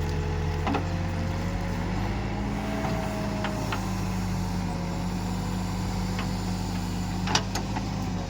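Escorts Digmax backhoe loader's diesel engine running steadily while digging, with a higher tone that drifts slightly in pitch and a few sharp metallic knocks, the loudest about seven seconds in.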